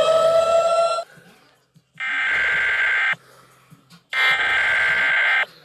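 Emergency alert siren rising in pitch and cutting off about a second in, then an electronic alarm buzzing in two long pulses of about a second each, a second apart.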